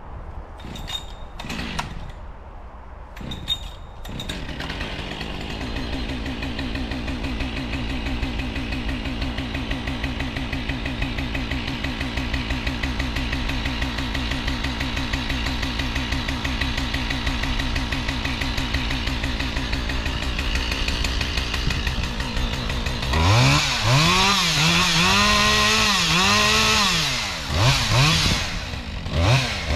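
Husqvarna 572 XP two-stroke chainsaw. A few sharp clatters come in the first seconds, then the engine idles steadily from about five seconds in. About 23 seconds in it is revved up loud, its pitch rising and sagging over and over, drops back briefly, and revs again near the end.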